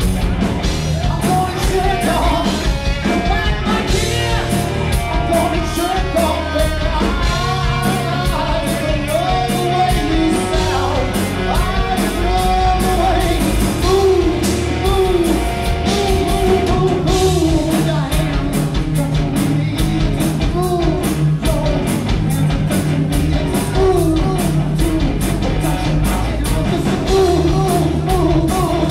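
Rock band playing live: a singer's vocals over electric guitars, bass and a drum kit, loud and without a break.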